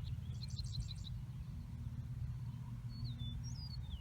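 Songbirds calling: a quick run of about six high chirps in the first second, then a few short whistled notes sliding down in pitch near the end, over a steady low hum.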